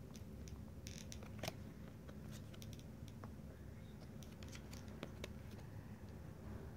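Faint, scattered clicks and slides of Pokémon trading cards being flipped through by hand, one card pushed over another, over a low room hum.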